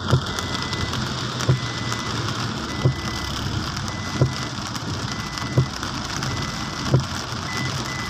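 Heavy rain and road noise heard from inside a car driving through a downpour, with a soft knock repeating evenly, six times, about every second and a half.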